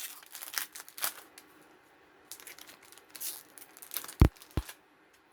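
Wrapper of a 1991–92 Pro Set hockey card pack crinkling and tearing as it is opened by hand, in several short bursts, with two sharp knocks about four seconds in.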